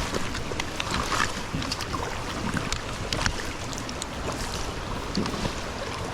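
Stream water rushing steadily, with wind buffeting the microphone and scattered light clicks and knocks.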